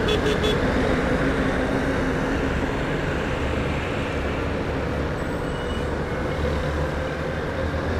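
Honda Bros motorcycle's single-cylinder engine running steadily at cruising speed, mixed with road and traffic noise.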